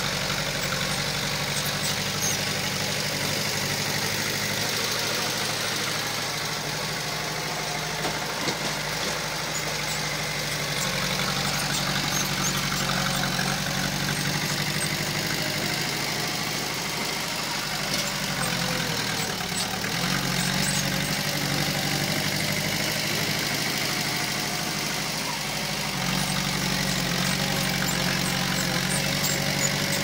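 Diesel engine of heavy earthmoving machinery running steadily. It dips briefly about two-thirds of the way through and runs a little louder near the end.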